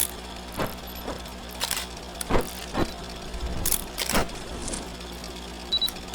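Old-film sound effect: a steady low hum of a film projector running, broken by irregular crackles and pops like dust and scratches on worn film.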